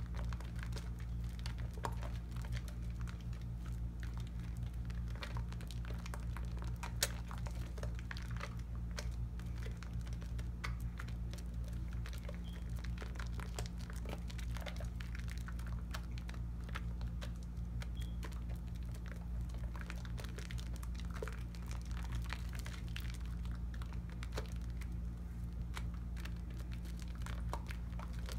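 Wet hands working a bar of Tone cocoa butter soap into thick foam: a continuous soft, wet crackle of lather made of many small pops and clicks, as the hands rub and squeeze the soap.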